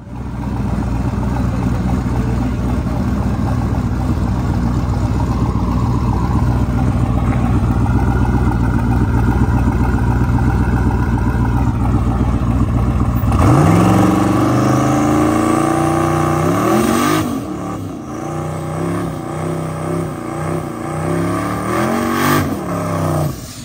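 A drag car's engine running loud and steady for roughly the first half. Then a red Camaro's engine revs up and down several times in a burnout, spinning its rear tyres into smoke.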